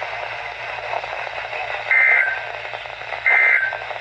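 EAS/SAME end-of-message (EOM) data bursts from a NOAA Weather Radio transmitter: two short, harsh warbling digital tone bursts, the first about two seconds in and the second just over a second later, over steady radio hiss. They mark the end of the flash flood warning broadcast.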